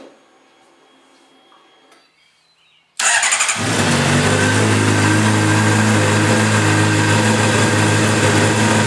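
A 2008 Honda CBR600RR's 600cc inline-four engine starts about three seconds in and settles straight into a steady idle. It has just been refilled with fresh oil and is run to check for leaks.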